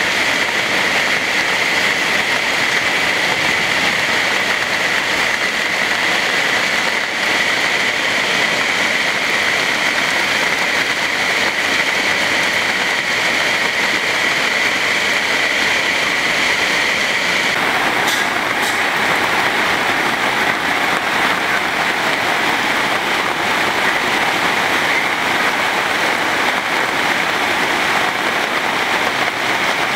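Heavy rain falling steadily onto a flooded road, a dense, even hiss of drops splashing into standing and running water. The sound shifts slightly in tone a little over halfway through.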